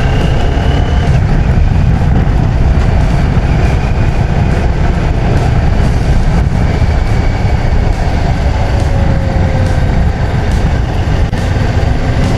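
CFMoto 650MT's parallel-twin engine running as the motorcycle rides along in traffic, heard from a rider-mounted camera under a loud, steady low rumble.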